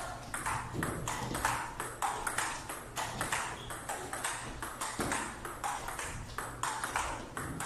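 Table tennis rally: the plastic ball clicking off the paddles and the table top, several quick strikes a second in an even run.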